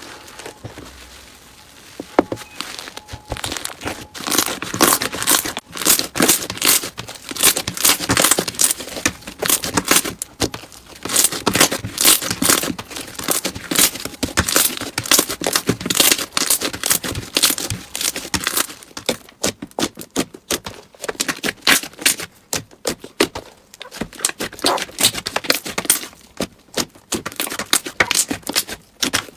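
Slime being squished and worked by hand, giving a dense run of sharp crackling and popping clicks that starts about two seconds in.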